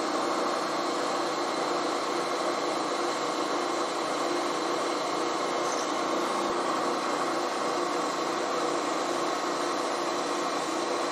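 Milling machine spindle running steadily while a center drill spots a hole in a steel parting blade.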